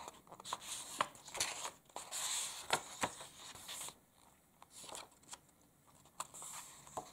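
Paper page of a picture book being turned by hand: crisp rustling and crinkling with small clicks, busiest for the first four seconds, then a few softer rustles as the book is pressed open.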